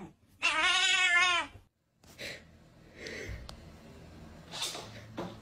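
A black-and-white domestic cat gives one long, loud meow, rising then falling in pitch, lasting just over a second. Fainter short noises follow after it.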